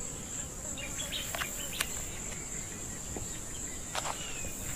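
A steady, high-pitched insect drone, like crickets or cicadas, with a few brief sharp clicks and faint bird chirps.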